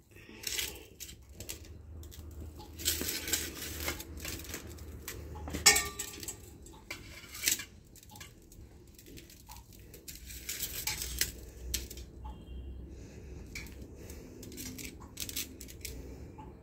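Boiled potatoes mashed with a small steel bowl pressed onto a steel plate: irregular clinks, knocks and scrapes of steel on steel with the potatoes squashing underneath. The loudest knock comes about six seconds in.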